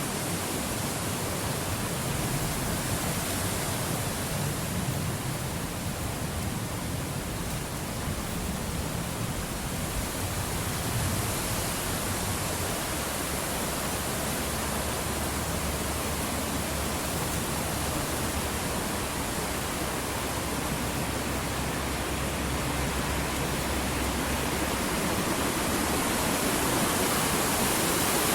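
Wind sound effect: a steady rushing of wind with a low rumble underneath and a high hiss on top, swelling gently near the end.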